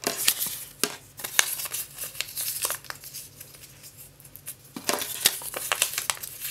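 Small paper slips being folded and crumpled by hand, crinkling in irregular bursts, busiest near the start and again near the end with a quieter stretch in between.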